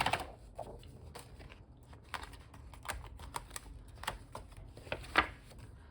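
Paper planner pages being handled and pulled from a disc-bound planner: a brief rustle, then light scattered clicks, with a sharper click about five seconds in.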